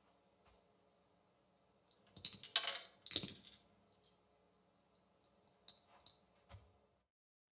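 A quick cluster of sharp clicks and rattles about two to three and a half seconds in, followed by a few scattered light clicks. The sound cuts to dead silence shortly before the end.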